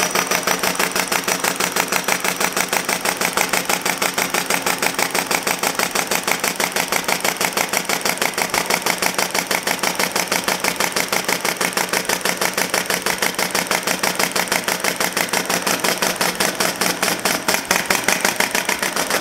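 Small two-cylinder, four-stroke model engine in the style of the early John Deere tractor engine, 3/4-inch bore, running steadily on compressed air. It gives a fast, even stream of air exhaust puffs.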